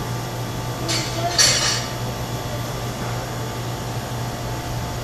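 Steady low machine hum, with a short hissing rustle about a second and a half in.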